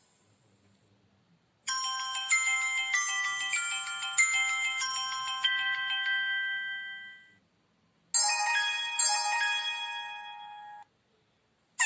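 Two short preloaded tones from a Samsung SGH-U900 Soul phone. The first is a melodic, bell-like run of notes that starts about two seconds in and fades out. After a brief gap comes a second, shorter chime.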